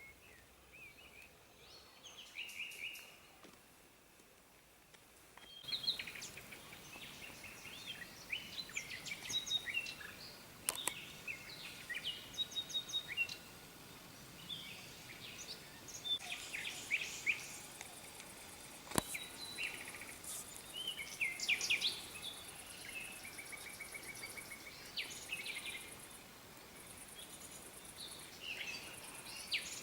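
Several songbirds singing and calling at once: short chirps and trills, one after another, over a steady outdoor hiss. A single sharp click about nineteen seconds in.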